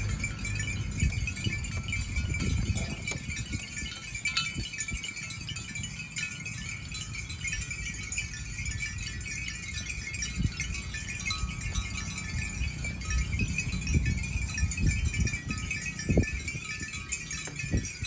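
Many bells worn by a walking herd of water buffalo, jingling and clanking without pause in a dense overlapping ring, with low thumps underneath.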